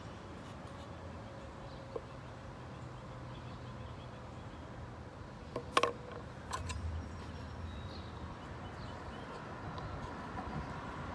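Roadside ambience: a steady faint hum of traffic, with a few sharp clicks about halfway through and a vehicle starting to approach, growing louder near the end.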